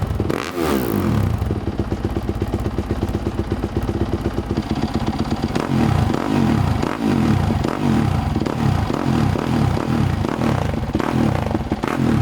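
Dirt bike engine running through a newly fitted Rocket Exhaust aftermarket exhaust. It holds a fairly steady run for a few seconds, then is blipped again and again, the revs rising and falling about once a second.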